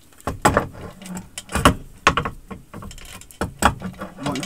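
Metal heat-press platen knocking and clanking against its quick-change mount as it is worked into place: a series of sharp knocks and rattles, loudest about one and a half seconds in.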